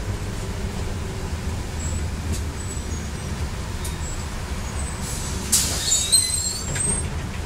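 Scania city bus heard from inside the cabin, its engine running low and steady as it slows. About five and a half seconds in, a loud hiss of air comes from the air brakes, with short high squeals, as the bus comes to a halt.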